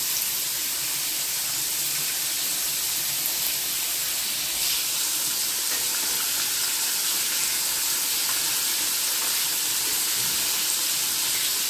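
Bombay duck (bombil) fish sizzling as it fries in hot oil: a steady frying hiss that does not let up.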